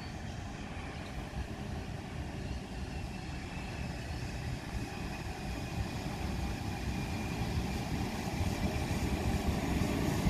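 Vintage 'Red Rattler' single-deck electric suburban train approaching, its rumble on the rails growing steadily louder as it draws in alongside the platform.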